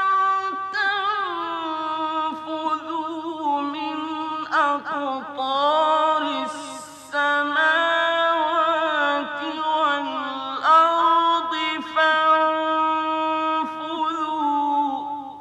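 Male Quran reciter chanting in melodic mujawwad style: long held notes with ornamented turns in pitch, pausing briefly between phrases, and the last phrase dies away near the end.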